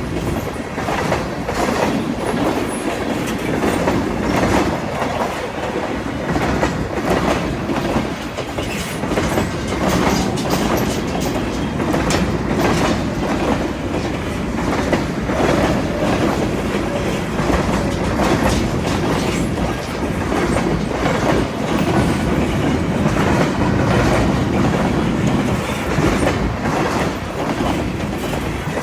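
Freight train rolling past, its wheels clicking steadily over the rail joints.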